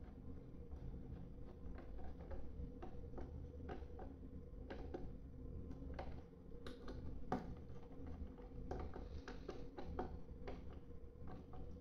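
Faint, irregular small clicks and ticks of a hand screwdriver driving a screw into a battery case's front panel, over a steady low hum.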